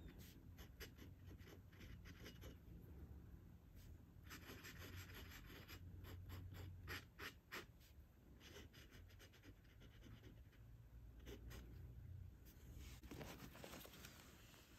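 Faint scratching of a glass dip pen's nib on paper, a string of short strokes as it writes letters and loops. A brief rustle near the end.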